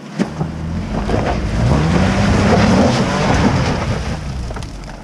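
Jeep Cherokee Trailhawk's engine revving as it climbs a rocky ledge trail: the pitch rises for about a second and a half, then eases off. Scattered knocks and clicks come from the tyres going over rock.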